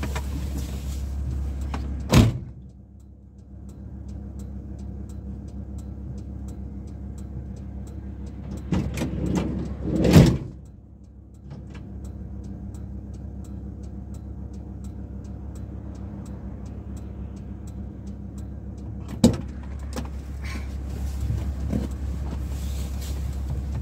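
VW T4 van doors being worked while the engine idles: the driver's door shuts with a loud slam about two seconds in, then a steady low idle hum is heard inside the closed cab. Around nine to ten seconds in a rolling sound ends in a heavy slam, the sliding side door being run along its track and shut while a rattle at the back is checked. Near the end a sharp clunk comes as the driver's door opens, letting in louder outside rumble.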